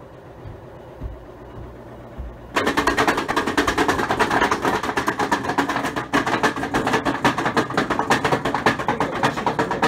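A worn-out Frigidaire front-loading washer running with a loud, rapid mechanical rattling and grinding. It starts suddenly about two and a half seconds in, after a low hum with a couple of soft thumps. The noise is the sign of a washer that has broken after 12 years of use.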